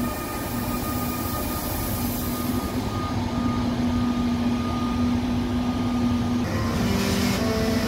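ÖBB Taurus (class 1116) electric locomotive moving slowly through the station. Its traction converters give a steady electric hum over the rumble of the train. Near the end, a stepped series of musical tones begins: the Taurus's well-known converter "scale" heard at low speed.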